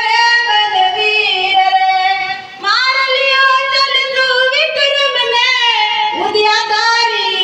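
A girl singing solo into a handheld microphone, a high voice holding long, drawn-out notes that slide between pitches, with a short break for breath a little after two seconds in.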